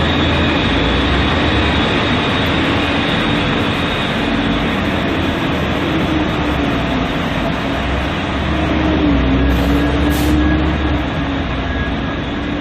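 Steady, loud mechanical rumble and hiss of firefighting machinery at a smouldering fire site, with a hum that wavers slightly in pitch.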